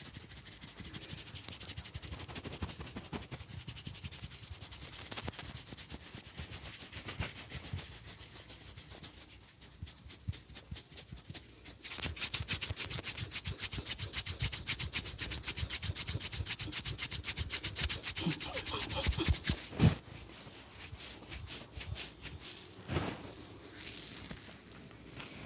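Barber's hands rubbing quickly over a person's head and skin in a massage: a fast run of rubbing strokes that gets louder about halfway through, with a couple of single thumps near the end.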